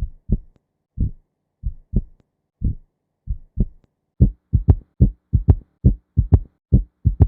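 Heartbeat heard through a stethoscope, with a third heart sound (S3): a low extra thud in early diastole after the second sound, making a three-beat gallop. An S3 is normal in children and adults under about 30 but can be abnormal later, for example with pericarditis or aortic or mitral regurgitation. The thuds come faster and closer together from about four seconds in.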